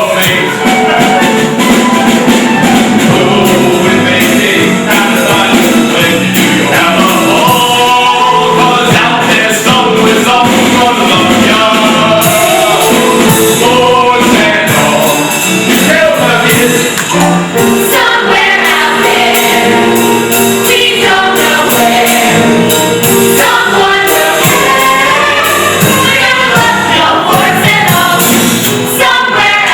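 Voices singing a show tune together over instrumental accompaniment with a steady beat.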